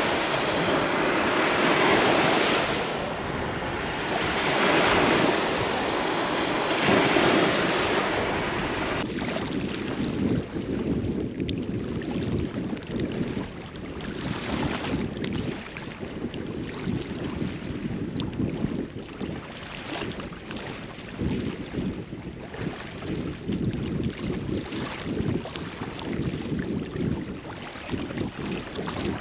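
Sea surf washing onto the shore, with wind buffeting the microphone. For the first third the waves swell and fade every two to three seconds; after that the wind gusts take over as a rougher, choppier rush.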